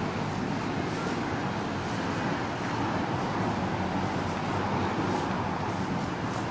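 Steady outdoor background noise with no distinct events, an even hum and hiss.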